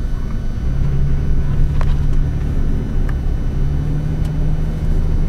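Engine and road noise of a moving car, heard from inside the cabin: a steady low drone with a few faint ticks.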